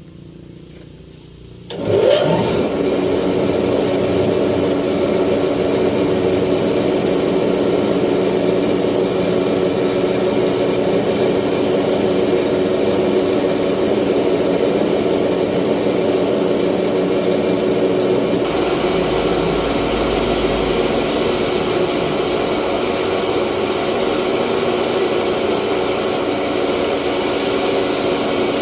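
Rice milling machine starting up about two seconds in, its pitch climbing quickly, then running loud and steady; the sound shifts slightly past the halfway point.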